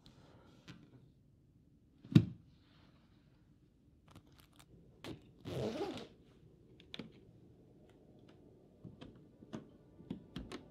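A single sharp thud about two seconds in, then a short rasping run of a jacket zipper being pulled, followed by light clicks and rustles.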